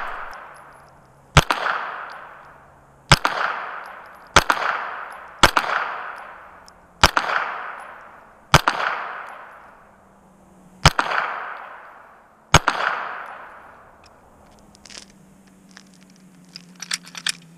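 Eight shots in slow fire from a Smith & Wesson M&P 9 Pro 9mm pistol, spaced one to two and a half seconds apart, each trailing off in an echo that lasts about a second. A few light clicks come near the end.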